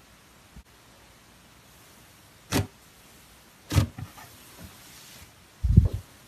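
Cloud slime being pressed and squished by hand: three short squishes a second or two apart, the last one the loudest.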